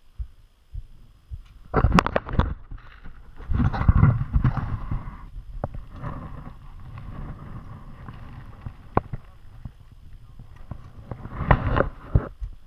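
Knocking and crunching of movement and gear close to a body-worn camera's microphone, in short clusters about two seconds in and again near the end, with a low rumble between them.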